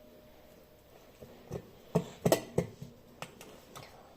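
A fork knocking and scraping against a bowl while boiled potatoes are mashed, with several short, irregular knocks starting about a second in.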